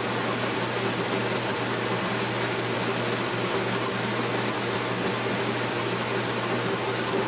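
Steady blower noise: an even hiss with a constant low hum, from air-moving spray-finishing equipment running while the first coat of finish goes onto a drum shell.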